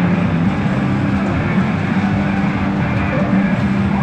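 PA Yasei no Ōkoku GO pachinko machine playing its game music over a steady, dense din.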